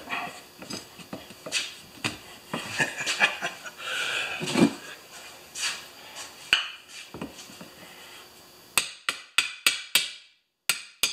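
Tire irons and a long pry bar clanking and scraping against a small tractor tire's metal rim on a manual tire changer as the bead is worked over the rim. Near the end come several quick, sharp metal knocks in a row, a few a second.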